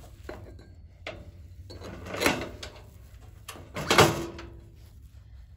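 Go-kart front wheel being slid onto its steel spindle by hand, metal scraping and knocking, with two louder scraping clunks about two and four seconds in among lighter clicks.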